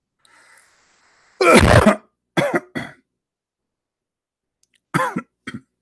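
A man clearing his throat: one loud rasp about a second and a half in, followed by two shorter throat sounds, and brief vocal sounds near the end.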